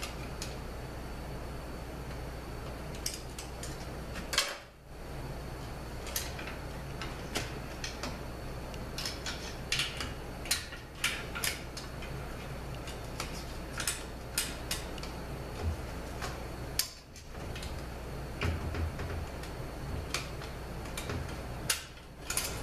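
Irregular light metallic clicks and scrapes of a pick tool prying at a steel snap ring in its groove inside a 41TE automatic transmission case, over a steady low shop hum.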